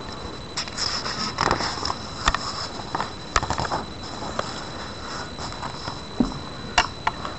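Textbook paper pages being turned and handled: a series of short rustles and a few sharp clicks, the sharpest near the end.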